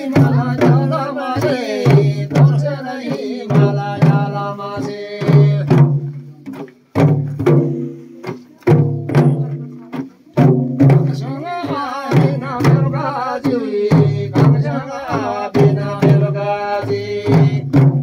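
Several damphu, the Tamang frame drums, beaten together in a steady, repeating rhythm, each stroke leaving a deep ringing tone, while voices sing along over the drumming.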